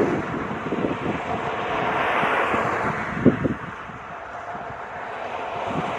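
Distant Airbus Beluga twin-engine cargo jet, its engines giving a steady rushing noise that fades somewhat after the middle. Light wind on the microphone, with a brief bump about three seconds in.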